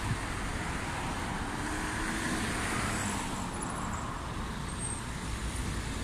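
Steady road traffic noise, with a vehicle passing more loudly about two to four seconds in.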